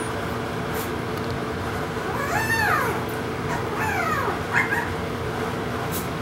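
Boston Terrier puppies just under five weeks old whining: one high whine that rises and falls about two seconds in, then a few shorter falling whines around four seconds in, over a steady background hum.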